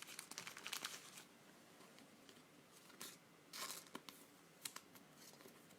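Faint, soft rustling and a few brief crinkles of a trading card being slid into a plastic card sleeve and handled.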